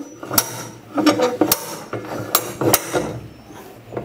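Hammer blows on a spanner fitted to a top-loading washing machine's 36 mm gearbox check nut: about five sharp metallic strikes at an uneven pace, knocking the jammed nut anticlockwise to loosen it.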